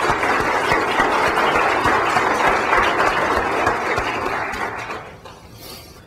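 Audience applauding, a steady patter of many hands that dies away about five seconds in.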